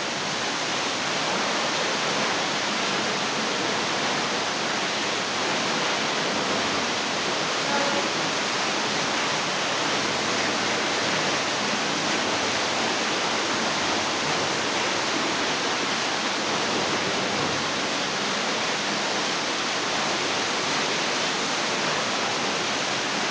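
Small waterfall: a steady, unbroken rush of falling water.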